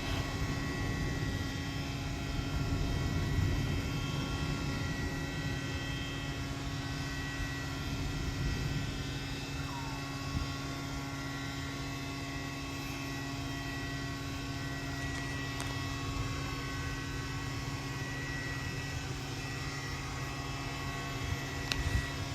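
A steady electrical hum, like fan motors running, over a low rumbling noise that is a little stronger in the first few seconds.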